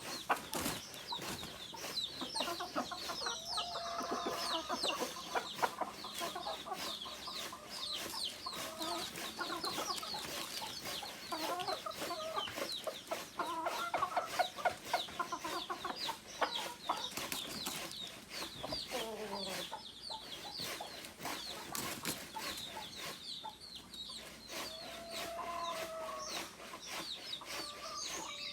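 A flock of native chickens clucking and calling, with many short high-pitched peeps throughout and scattered sharp clicks.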